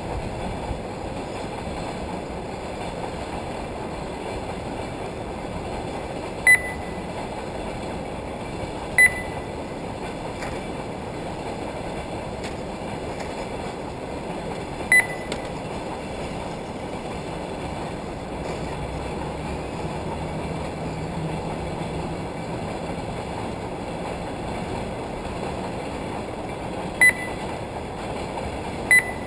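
Radio-controlled short-course cars running around a dirt track, heard as a steady hum and hiss, with several short high electronic beeps at uneven intervals, typical of a lap-timing system registering cars crossing the line.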